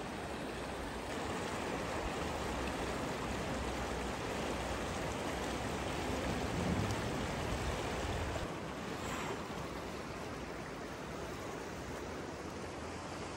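Tian Shan mountain stream rushing past, a steady hiss of flowing water that drops a little in level after about eight seconds.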